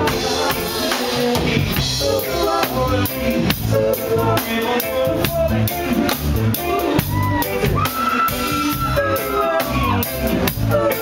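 Live reggae band playing loud amplified music: a steady drum-kit beat, electric guitar, keyboard and lead vocal, with a long held high note about eight seconds in.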